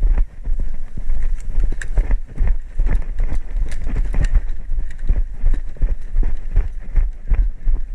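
Footsteps of a player on the move, with gear knocking against the worn point-of-view camera: many irregular knocks over a steady low rumble.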